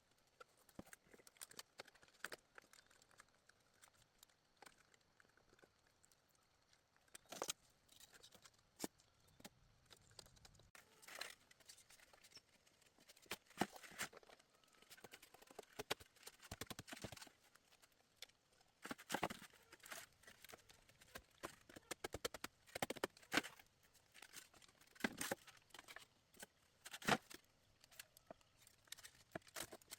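Faint, irregular rustling and crackling with scattered sharp clicks and snaps, as material is handled and worked by hand.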